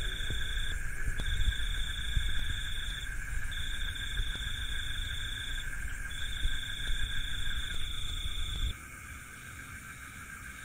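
Night insects calling: a high steady trill in four runs of about two seconds with short breaks, over a lower continuous drone. Low rumbling handling noise on the microphone stops abruptly near the end.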